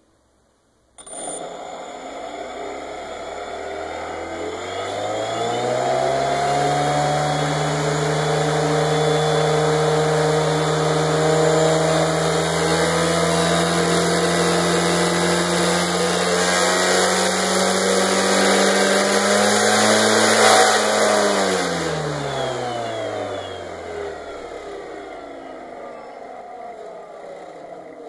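A 3D-printed propeller driven by a motor on a test rig, spinning up: a pitched whirring that starts abruptly, rises in pitch over several seconds, holds steady at about a third throttle, then drops in pitch and fades near the end as it spins down. The propeller is out of balance, by its maker's account.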